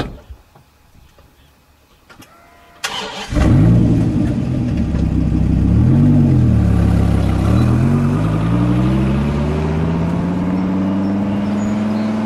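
Dodge Viper V10 starting: a brief crank about three seconds in, then the engine catches loud and revs up and down. It then pulls away with its pitch climbing steadily as it accelerates.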